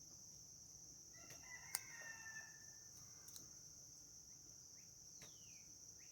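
Faint, distant rooster crowing once over a steady high drone of insects, with a single sharp click during the crow and a few short bird chirps near the end.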